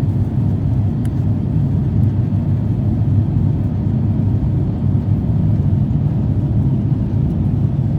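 Airliner cabin noise: the steady low rumble of the engines and airflow heard from inside the passenger cabin.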